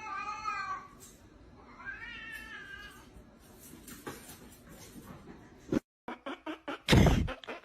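A cat meowing twice in long, wavering calls. Near the end come a few sharp knocks and then a loud thump or crash.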